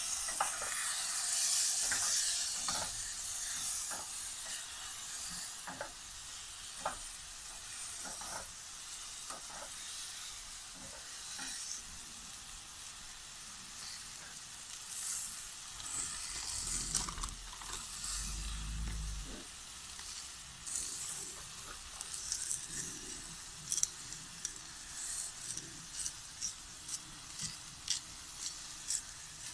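Mushrooms frying in a pan on a camping stove, the sizzling loudest in the first few seconds and going on steadily under scattered clicks and knocks of handling. Near the end comes a run of regular sharp clicks, about two a second, as a seasoning mix is ground over the pan.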